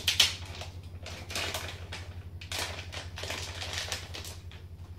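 Crinkling and rustling of a metallized anti-static bag as the replacement LCD panel is pulled out of it, in irregular crackly bursts over a steady low electrical hum.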